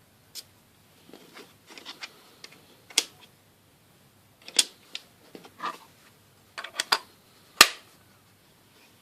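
Irregular clicks and clacks of a magnetic precision screwdriver set being handled, small metal parts knocking together. The sharpest click comes near the end.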